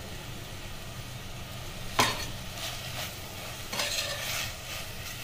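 Steel spoon stirring and scraping a sizzling vegetable mixture in an aluminium pressure cooker pan. There is a sharp knock of the spoon on the pot about two seconds in, followed by several scrapes.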